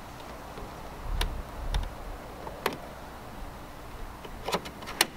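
Scattered sharp clicks and ticks of a plastic pry tool and a thin metal pick working under the edges of a Honda grille emblem to pry the badge loose, with two clicks close together near the end. A brief low rumble about a second in.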